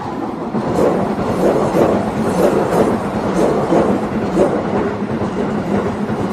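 Keisei electric train passing close by over a level crossing. It comes in suddenly loud and runs as a steady rumble, with wheels clacking over the rail joints in a repeating rhythm.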